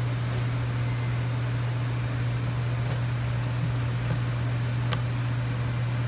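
Steady low hum with an even hiss under it, like a fan or room ventilation running. There is a faint click about five seconds in.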